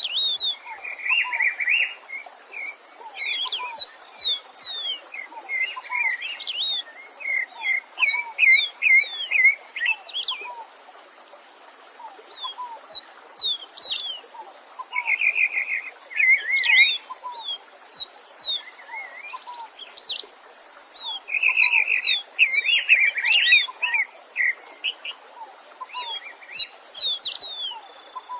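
Several songbirds singing together: phrases of quick, high, falling whistles and short rapid trills, with a lower short note repeating about once a second. Underneath runs a faint steady hiss of a running stream.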